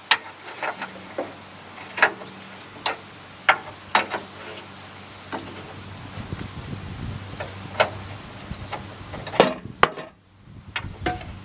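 Hand ratchet and socket turning the upper control arm's 15/16 mounting bolts, which have already broken loose: a string of sharp clicks, about one every half second to a second and a half.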